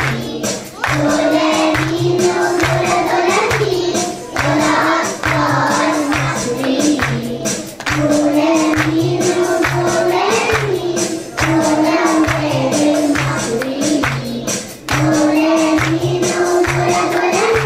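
Kindergarten children's choir singing a song together, a girl at a microphone leading, over backing music with a steady beat.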